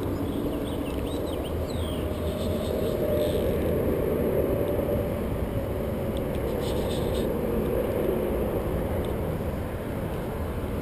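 Steady low rumbling noise of wind buffeting the camera's microphone, with a few short high chirps about two to three seconds in.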